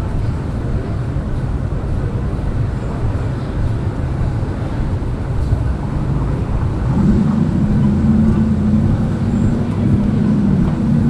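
City street traffic with a steady low rumble. About seven seconds in, a louder, steady low engine-like hum joins in.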